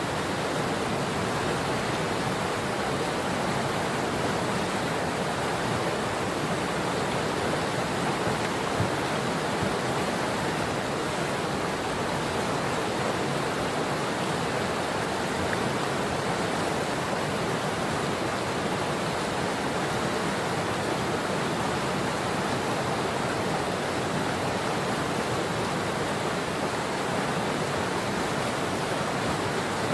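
Patapsco River water rushing steadily over rocks, a constant even roar with no breaks.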